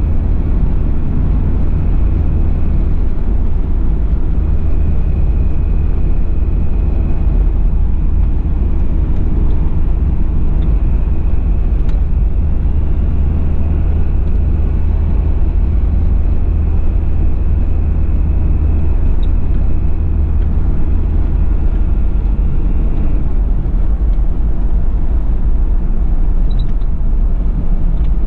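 Cabin sound of a 1991 Toyota Land Cruiser Prado LJ78's 2.4-litre four-cylinder turbo diesel cruising on the highway: a steady low engine and road drone. A faint high turbo whistle runs over it and fades out about five seconds before the end.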